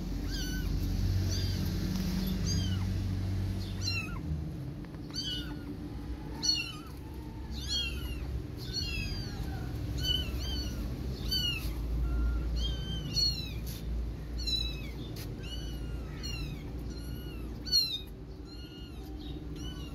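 Kittens mewing: a run of short, high-pitched calls, about one or two a second, starting about four seconds in and going on until near the end.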